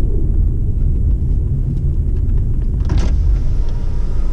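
Low, steady rumble of a car rolling slowly, heard from inside its cabin, with a brief hiss about three seconds in.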